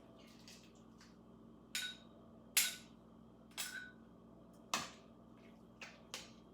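Dishes and utensils knocking and clinking: several sharp knocks about a second apart, some with a brief ring.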